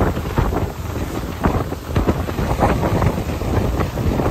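Wind buffeting the microphone in irregular gusts aboard a moving lake passenger ship.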